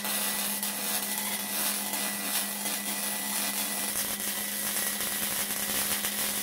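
Wire-feed welder arc crackling steadily as steel bumper tubes are welded in.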